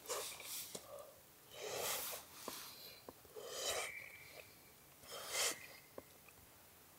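A person breathing audibly, four breaths about a second and a half to two seconds apart, with a few faint clicks between them.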